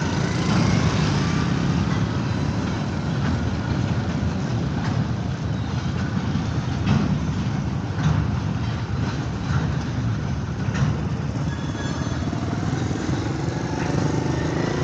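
Freight train wagons rolling past on the rails: a steady rumble with irregular wheel clicks over the rail joints.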